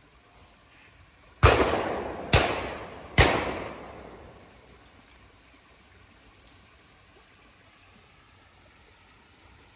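Three shotgun shots in quick succession, a little under a second apart, each with a fading echo.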